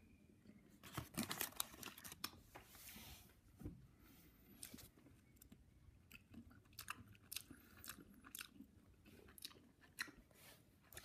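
Faint chewing of a bite of milk chocolate, with scattered soft crunches and clicks.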